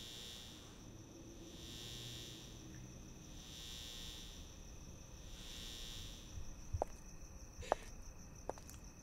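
Electric buzzing of a streetlight, swelling and fading about every two seconds over a steady high whine. From about seven seconds in, three clicks of high-heeled footsteps on pavement, a little under a second apart.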